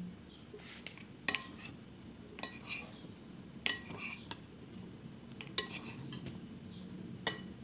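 A metal spoon and a plastic spatula stirring and tossing chunky chicken potato salad in a glass bowl: a soft, wet rustle of the food, with a sharp clink of the spoon against the glass every second or two.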